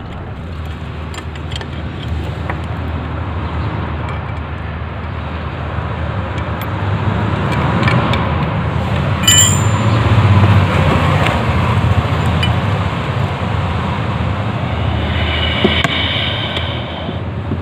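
Road traffic running steadily in the background, swelling about halfway through as a vehicle passes. Over it come small metallic clicks and one ringing clink from a T-spanner working a motorcycle's gear-shift lever bolt. A short high-pitched tone sounds near the end.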